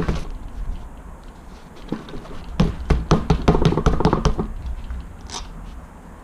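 Clicks and light knocks of hand tools and bike parts being handled while a wheel is worked loose, a short cluster at the start and a busier run of knocks from about two and a half to four and a half seconds in.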